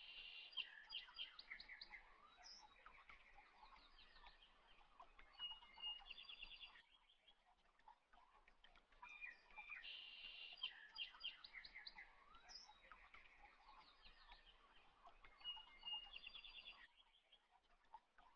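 Faint birdsong, quick chirps and trills, with the same passage repeating about every ten seconds like a looped recording.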